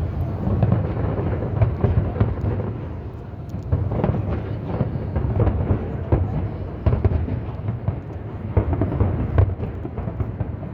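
Aerial fireworks going off in a continuous barrage: many overlapping bangs over a steady deep rumble.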